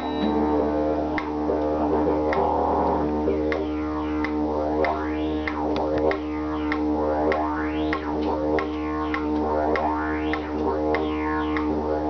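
Didgeridoo droning on one low note, its overtones sweeping up and down, with short sharp accents through the drone.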